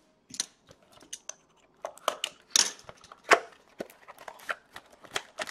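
Sealed cardboard box of hockey cards being opened and handled by hand: a quick run of short scrapes, taps and crinkles as the box is worked open and its foil-wrapped pack comes out.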